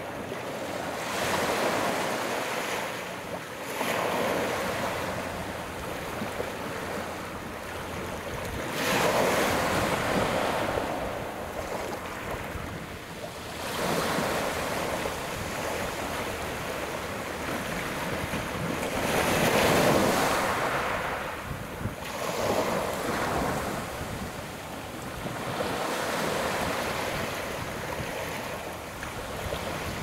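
Sea waves breaking and washing on the beach, each surge swelling and fading every four to five seconds.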